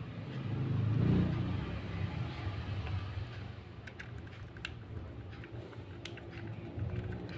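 A low rumble that swells about a second in and then fades, with a few light clicks as small hard-drive and caddy parts are handled.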